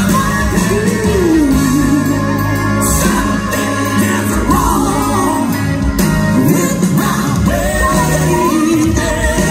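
Live soul duet: a man and a woman singing over a full band, their voices sliding through ornamented lines.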